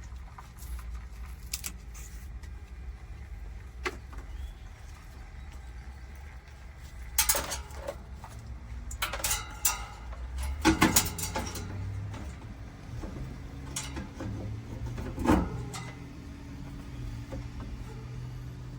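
Metal tools and hardware clinking and clattering during an HVAC fan-motor replacement, with a cluster of louder knocks and rattles in the middle, over a low steady hum. A steady low hum with a tone joins from about eleven seconds in.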